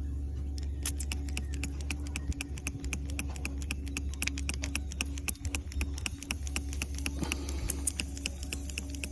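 Electronic refrigerant leak detector ticking rapidly, several ticks a second, as it picks up refrigerant escaping at a leak on a weld, over a steady low hum.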